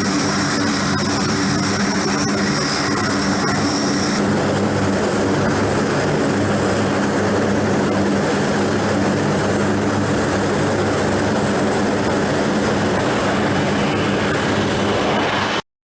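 Aircraft engine noise: a steady, loud drone with a low hum under it. A high whine drops out about four seconds in, and the sound cuts off abruptly just before the end.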